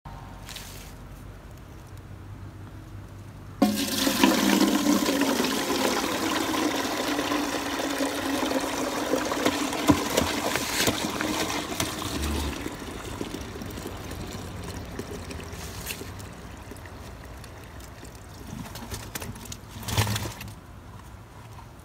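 Fermented black walnuts and their dark soaking water poured from a plastic bucket into a speckled enamel stockpot. A sudden gush and heavy splashing start about three and a half seconds in and taper off over several seconds, with a short splash near the end as the last walnuts slide out.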